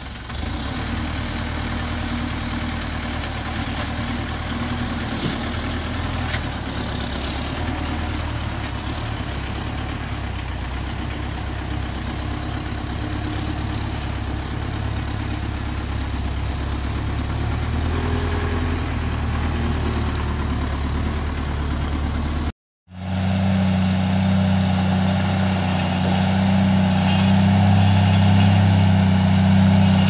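A machine engine running steadily. About three quarters of the way in, the sound cuts out for a moment and a different, louder engine comes in with a steadier hum.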